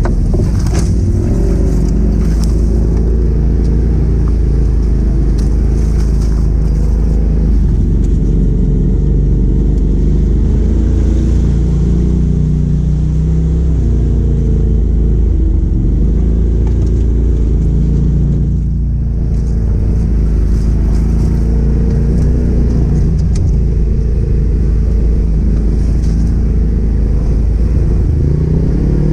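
Polaris RZR side-by-side's engine pulling steadily at low revs, heard from inside the cab, its pitch drifting up and down with the throttle. About two-thirds of the way through it eases off briefly, then picks back up.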